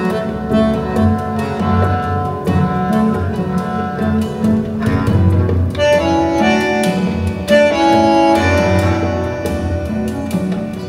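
Acoustic instrumental music playing back from a 45 rpm vinyl LP over a pair of hi-fi loudspeakers, with sustained melodic notes over a strong bass line.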